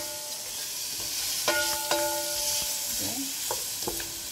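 Sliced onions, ginger and spices sizzling in ghee in a metal pot while a wooden spatula stirs them, knocking against the pot about four times; each knock leaves a short ringing tone over the steady frying hiss.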